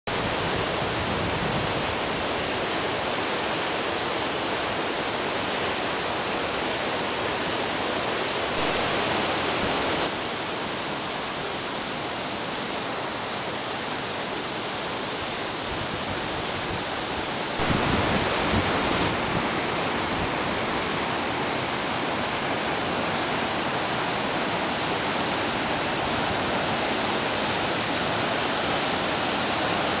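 Steady rush of a waterfall's falling water, stepping abruptly louder or quieter a few times.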